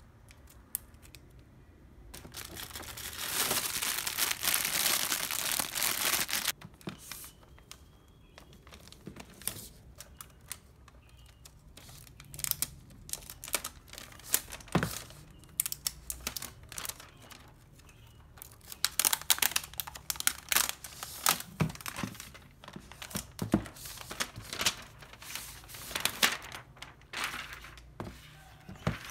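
Plastic packaging crinkling and rustling as a new laptop is unwrapped from its plastic sleeve: a long stretch of loud crinkling a few seconds in, then scattered rustles, taps and knocks of handling, and more crinkling in the last third.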